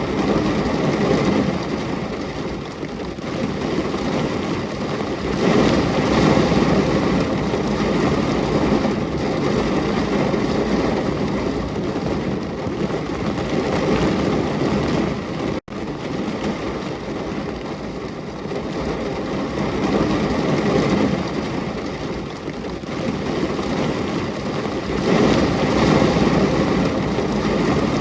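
Recorded rain falling: a steady, dense hiss that swells and eases. A split-second dropout comes a little past halfway through.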